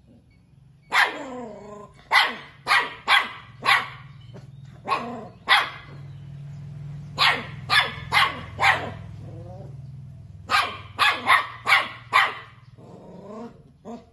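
Puppies yapping at a mouse caught in a wire cage trap: short, sharp, high-pitched barks in three quick runs of several yaps each, with a couple of fainter yaps near the end.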